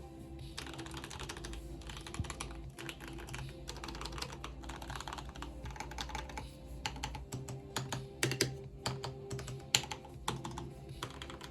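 Typing on a mechanical keyboard, a fast run of key clicks that thins to fewer, louder separate keystrokes in the last few seconds.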